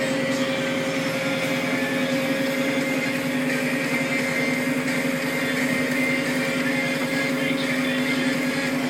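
Massey Ferguson 6150 tractor's diesel engine running steadily under load while ploughing, a constant drone with an even pitch.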